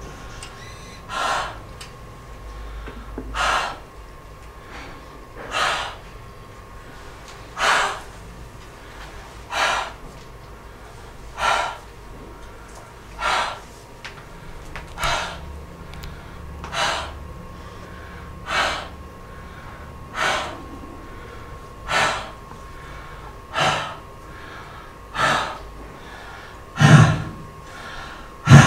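A woman breathing in sharp gasps close into a microphone, one about every two seconds, the last two louder with a low thud of breath hitting the mic. A faint steady tone runs underneath.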